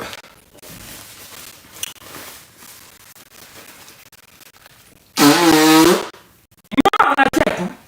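A person's voice: a loud, drawn-out vocal sound with a wavering pitch lasting nearly a second, then a shorter choppy vocal burst, over low room noise.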